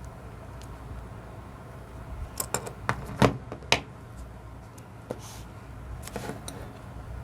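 Handling of fishing gear and its packaging: a quick run of sharp clicks and knocks about two and a half seconds in, and a softer cluster a little after six seconds, over a low steady hum.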